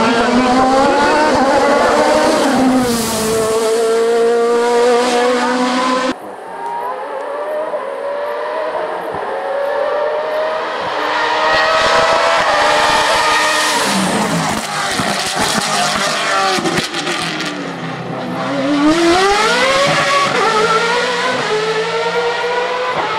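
Racing car engines at high revs on a hill climb, the pitch climbing through the gears and dropping at each shift. The sound changes abruptly about six seconds in, and a steep rise in revs comes near the end.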